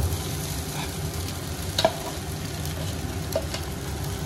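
Hot oil and tempering sizzling in a pan as soaked poha is stirred in with a steel slotted spatula, which clicks against the pan a few times.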